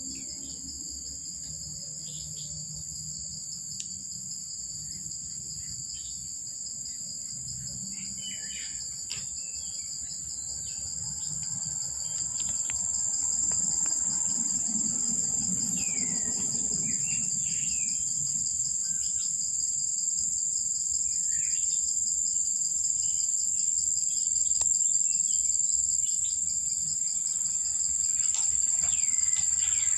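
Steady high-pitched insect chorus that grows louder about twelve seconds in, with scattered short bird chirps over it.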